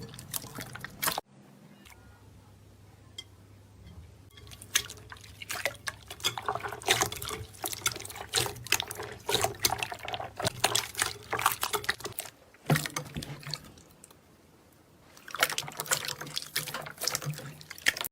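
Slime being squished and pressed, giving dense irregular wet clicks and pops in several bursts, with quieter pauses about a second in and again around 13 seconds in.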